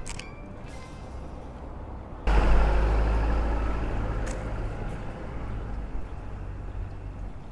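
Road traffic at a city street crossing. About two seconds in, a loud rumbling traffic noise starts abruptly and then slowly fades.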